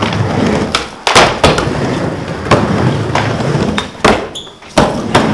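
Skateboard wheels rolling on a wooden mini ramp, broken by several sharp clacks of the board and trucks hitting the metal coping. The loudest clacks come about a second in.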